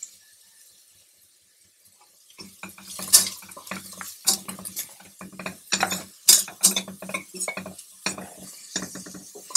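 Mushrooms frying with garlic in a little oil in a pan, sizzling while a utensil stirs and scrapes them against the pan in quick irregular strokes. It starts about two seconds in.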